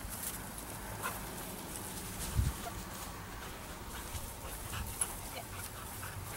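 A dog whining faintly a few times in short bursts, one call rising in pitch about a second in. There is a low thump midway.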